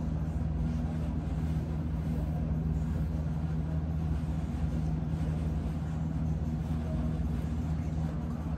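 A steady low machine hum with a light hiss, unchanging throughout.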